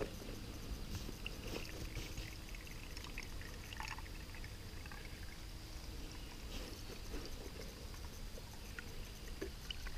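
Water trickling and dripping through a cloth bandana into a cup as it is strained, with small scattered ticks.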